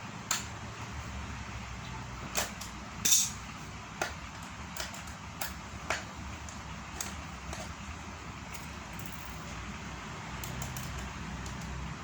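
Metal parts of a meat-grinder-style feed pellet machine clicking and knocking as they are handled and fitted: about eight sharp, irregular clicks in the first seven seconds, the loudest a little after three seconds, over a steady low hum.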